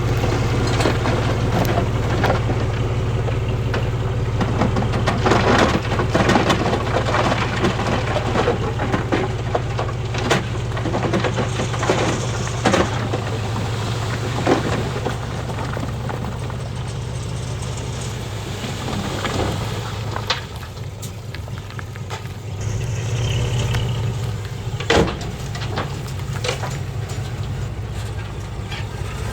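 Bulldozer's diesel engine running steadily under the crunch and clatter of stones being pushed, with many short sharp knocks; the engine eases for a few seconds past the middle, then picks up again.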